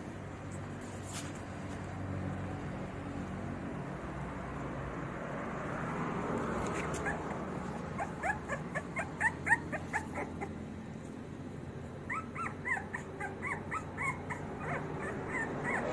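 Labrador puppies whimpering: runs of short, high squeaks that slide upward in pitch, several a second, starting about six seconds in and coming again in the second half, over low background noise.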